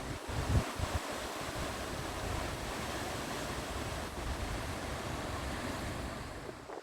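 Steady rush of floodwater, with wind buffeting the microphone in the first second or so.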